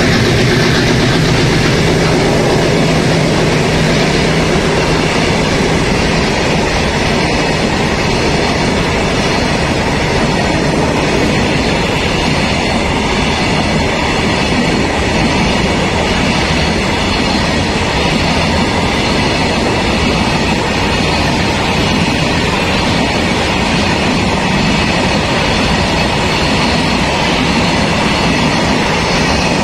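BTPN tank wagons of a freight train rolling past at speed close by, a steady loud rumble and rattle of wheels on rail. The WDG6G diesel locomotive's engine fades out over the first few seconds as it draws away.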